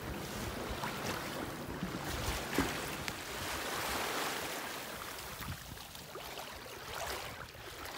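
Bow wave of a 1962 28 ft Pearson Triton sailboat under sail: water rushing and splashing along the hull as it cuts through chop, with a few sharper slaps. The rush swells about halfway through.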